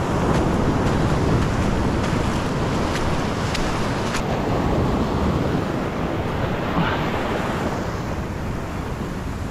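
Surf washing and fizzing over a shallow rock reef flat, a steady rush of water, with wind buffeting the microphone.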